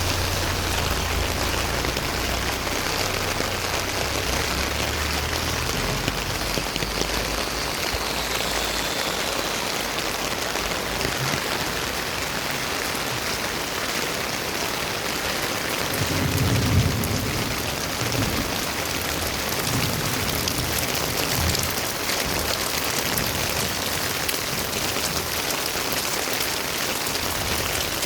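Heavy monsoon rain falling steadily, a dense even hiss of rain on surfaces. There is a low rumble in the first few seconds and a brief low swell about halfway through.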